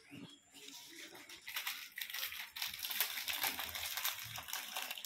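Plastic snack packet crinkling and rustling as it is handled, a dense crackle that starts about a second and a half in and keeps on.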